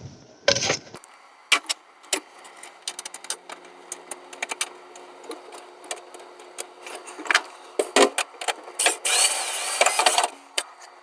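Irregular metallic clicks and light knocks of a screw being driven into a range hood's cover, then a brief burst of scraping noise about nine seconds in.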